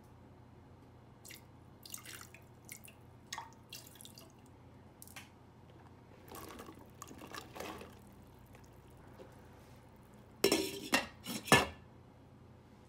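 Light taps and small splashes in a stainless steel pot of water, then a rustling stretch as beech mushrooms are tipped in. Near the end, a glass pot lid clanks loudly three times as it is set onto the steel rim.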